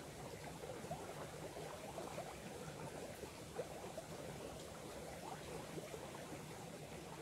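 Small stream running, a steady babble of water with many small bubbling sounds.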